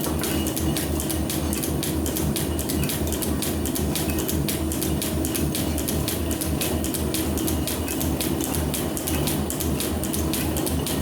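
Metal planer running while its tool cuts a steel bar: a steady low hum with quick, even clicking, about five clicks a second.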